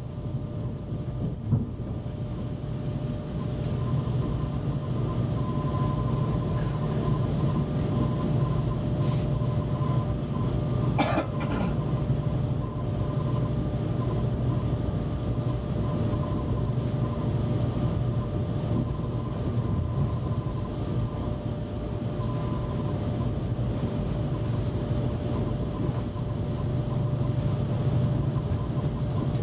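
Copenhagen S-tog electric commuter train heard from inside the carriage while running: a steady low rumble from the wheels on the track, with a steady hum above it. There is a brief sharp squeal about eleven seconds in.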